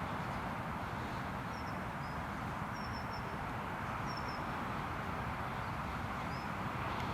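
Small birds chirping briefly several times over a steady rushing noise.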